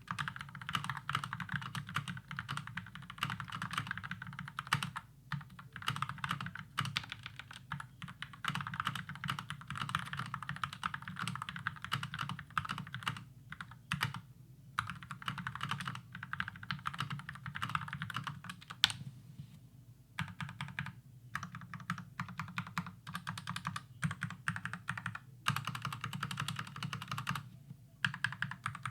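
Typing on an Akko 5087 QMK, a gasket-mounted polycarbonate keyboard with factory-lubed Gateron pink switches: fast, continuous keystrokes with a few brief pauses.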